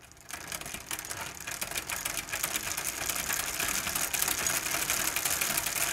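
Rapid, even mechanical clicking over a hiss, slowly getting louder.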